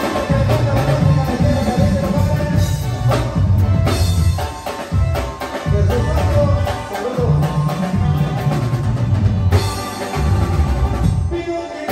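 A live band plays an instrumental passage, with electronic keyboard and drum kit over a heavy, pulsing bass line, amplified through PA speakers.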